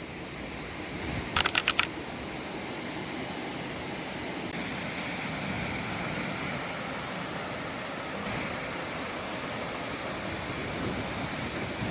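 Steady rush of water, with a quick run of about five sharp clicks about a second and a half in.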